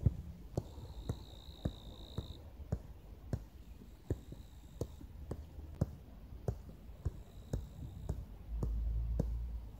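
Football being juggled on the feet: a soft tap of foot on ball repeating every half second or so. Japanese bell crickets (suzumushi) sing a high, steady ringing note in short stretches, loudest from about a second in to past two seconds. A low rumble comes in near the end.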